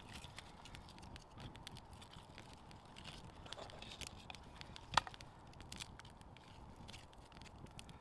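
Wood campfire of split kindling crackling, with irregular small pops and one louder sharp pop about five seconds in.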